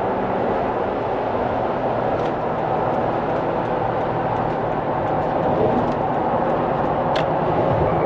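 Steady road and tyre noise of a car driving on a rain-wet freeway.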